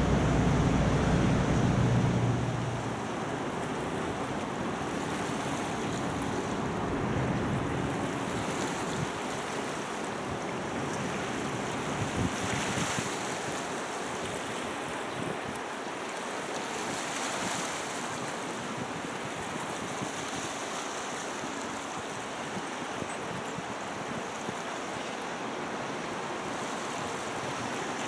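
Harbour waterside ambience: a steady rush of wind and lapping water. A low boat-engine hum fades out in the first two or three seconds.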